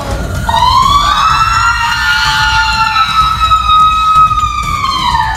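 A woman's long, high-pitched scream: one held shriek that starts about half a second in, rises slightly, and sinks and cuts off near the end.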